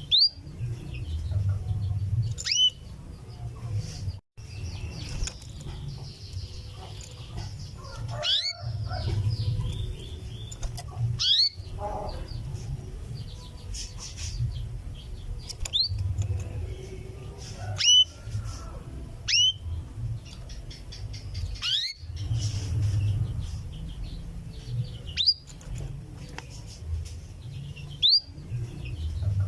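Female canary giving short, sharp 'cuwit' call notes, about ten of them spaced two to three seconds apart: a hen's call to a male. A steady low rumble runs underneath.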